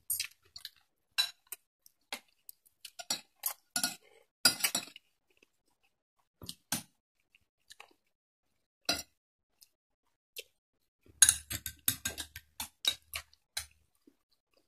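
Metal spoon and fork clinking and scraping against a plate and a small bowl in short scattered clicks, with a denser run of clinks near the end, and chewing in between.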